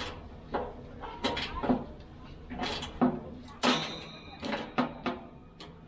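Hand screwdriver turning screws in a fitting on a steel smoker body: irregular metallic clicks and scrapes, about eight of them, one with a brief ringing tone about two-thirds through.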